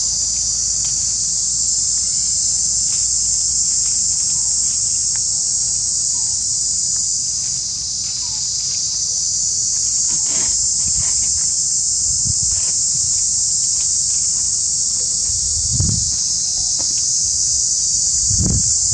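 Steady, high-pitched buzzing chorus of insects from the forest, unbroken throughout. A couple of dull low thumps come in the last few seconds.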